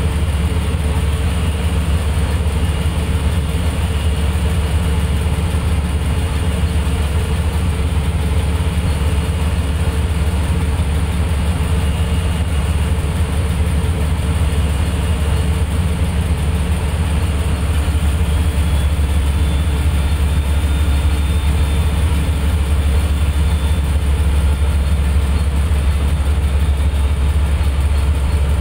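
Small wooden boat's engine running steadily, a loud, even low drone.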